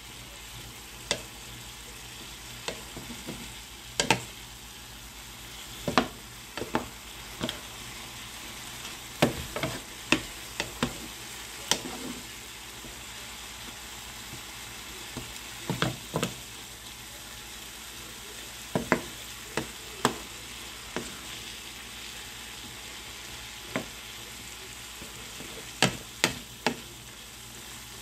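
Diced chicken and vegetable filling sizzling steadily in a pan while a utensil stirs it, with sharp knocks and clicks of the utensil against the pan at irregular intervals.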